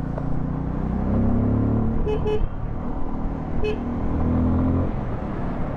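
Bajaj Pulsar F250's single-cylinder engine running under throttle, its note climbing about a second in and again after three seconds, then dropping near the end. Short beeps of the bike's horn cut in: a quick double beep about two seconds in and a single one a moment later.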